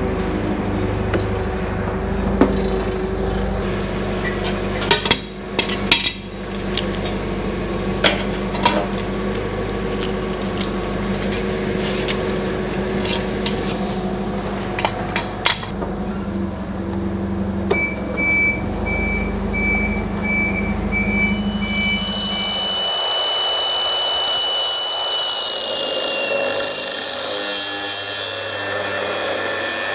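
A steady low machine hum with scattered metallic clinks and knocks. About three-quarters of the way through the hum stops and an angle grinder takes over, its disc grinding old welds off a steel truck-bed frame with a high whine and hiss.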